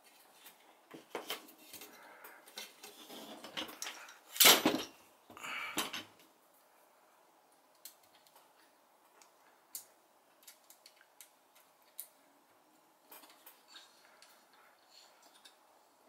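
Metal clinks, clicks and scrapes of a quad rail and its screws being handled and worked with a hex key on a Remington 870 shotgun. A busy stretch of clatter fills the first six seconds, loudest in a sharp clank about four and a half seconds in, then only scattered small clicks follow.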